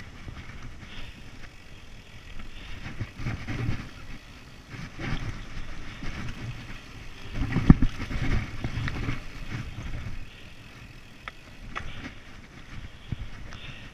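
Mountain bike ridden fast over a dirt singletrack: the tyres rumble on the trail and the bike rattles and clunks over bumps, with the hardest knock about eight seconds in.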